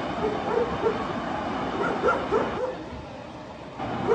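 A dog barking in a string of short yelps over a steady background rush, falling quiet for about a second after the middle.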